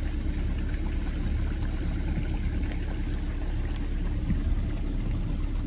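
Rain runoff flowing fast across a grassy yard in flash-flood conditions, a steady wash of running water.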